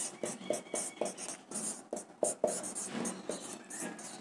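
Handwriting: a quick series of short, scratchy strokes with light taps as a number is written out.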